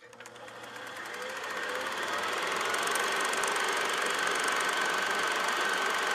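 Film projector running: a rapid, even mechanical clatter with a steady whine. It starts with a click and builds over the first two seconds or so, then holds steady.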